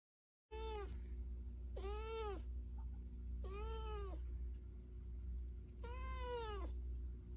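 Domestic cat meowing four times, a second or so apart, each meow rising and then falling in pitch, over a steady low hum.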